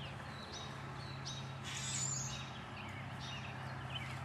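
Birds chirping in short repeated calls over a steady low hum, with a brief louder swish about two seconds in.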